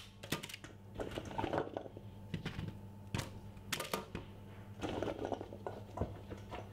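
Raw carrot and sweet potato pieces dropped by hand onto potatoes in a roasting tray lined with baking paper: a scatter of light knocks and taps with two short spells of rustling and shuffling, over a steady low hum.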